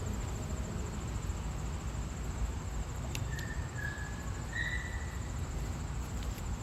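Crickets trilling steadily over a low background rumble, with a single sharp click about three seconds in and a few short, high tones soon after.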